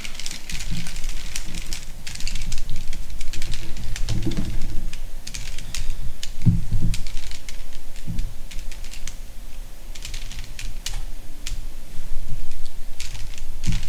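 3x3 Rubik's Cube being twisted by hand: quick runs of sharp plastic clicks as the layers turn, with short pauses between runs and a few soft low thumps from handling.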